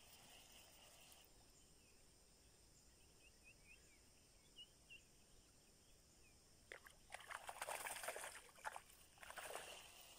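Sebarau (hampala barb) splashing at the water surface in a feeding frenzy: a burst of splashes lasting about two seconds starting about two-thirds of the way in, then a shorter burst just before the end. Faint small bird chirps come before the splashing.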